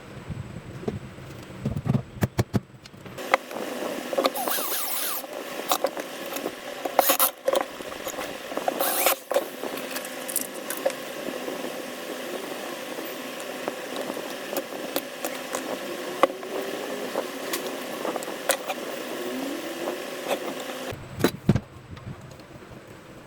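Metal clicks, knocks and scrapes from the parts of a circular saw being handled and fitted together, over a steady hum that sets in a few seconds in and stops near the end.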